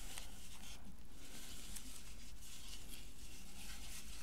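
Faint rustling and light crinkling of shredded packing-paper strips as they are picked off a cone of yarn by hand, with scattered small ticks.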